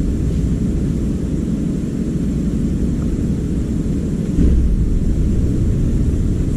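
Steady low rumbling noise, swelling briefly about four and a half seconds in.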